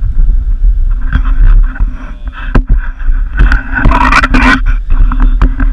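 Steady low road and engine rumble inside the cabin of a moving passenger van, with a louder rushing burst about four seconds in.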